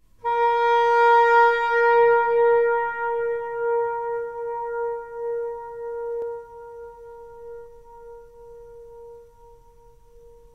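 A single long soprano saxophone note begins about a quarter second in and rings on, fading slowly over about ten seconds in the very long echo of the Taj Mahal's dome.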